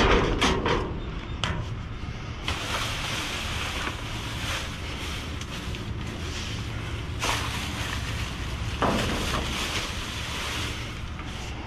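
Trash being rummaged in a metal dumpster: plastic bags and cardboard rustling and shifting, with a few light knocks in the first second or so, over a low rumble of wind on the microphone.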